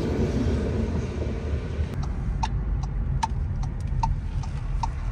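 Car road rumble heard from inside the cabin. About two seconds in, the turn-signal indicator starts clicking, an even tick-tock about every 0.4 s, as the car turns.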